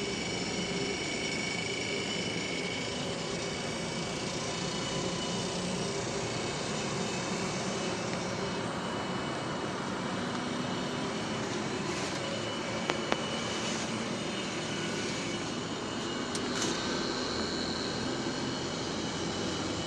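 Steady rushing drone of running machinery, like large fans and a motor, with faint steady whine tones over it. Two sharp clicks about two-thirds of the way through.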